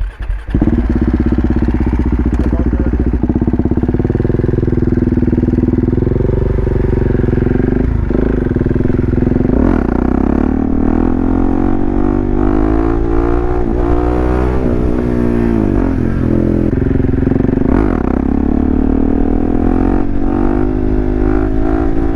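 Motorcycle engine running under way. Its pitch holds steady at first, then rises and falls several times in the middle as the revs change, then steadies again.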